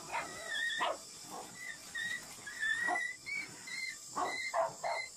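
A dog barking repeatedly in short, sharp barks.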